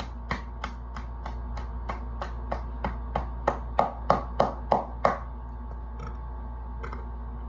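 A rapid, even series of sharp taps or knocks, about three a second, that stops about five seconds in.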